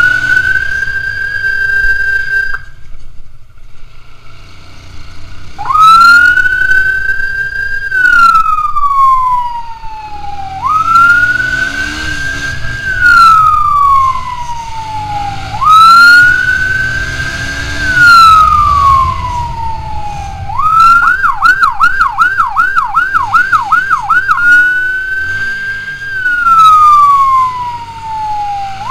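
Electronic emergency siren on a moving motorcycle, loud and close, sounding a wail: the tone climbs quickly, holds, then slides down, repeating about every five seconds. It cuts out for a few seconds near the start, and switches to a fast yelp of about three warbles a second for some three seconds before returning to the wail, over a low engine rumble.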